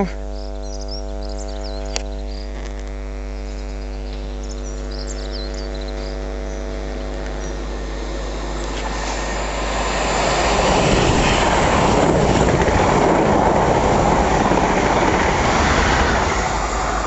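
Class 90 electric locomotive 90008 and its train approaching and passing through the station at speed. The rush of wheels on rail and air builds from about nine seconds in and stays loud as the locomotive goes by. Before it arrives there is a steady low hum.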